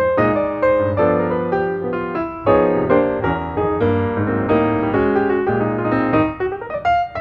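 Background music: piano playing chords and melody notes.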